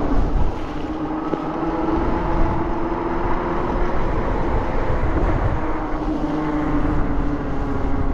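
Fat-tyre electric bike with dual Bafang hub motors under way: a steady hum from the motors and knobby tyres that drifts slightly in pitch, over a low wind rumble on the microphone.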